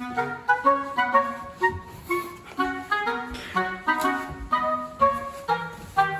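Background music: a bouncy woodwind melody of short, quick notes over a bass line.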